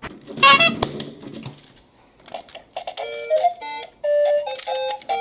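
Simple electronic melody in plain beeping notes, starting a little over two seconds in. Before it, a short rising squeak about half a second in and a sharp click just after.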